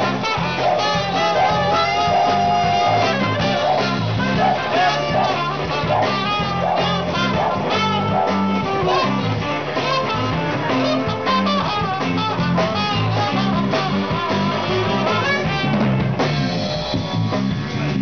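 Live R&B band playing, with a trumpet soloing over drums and bass.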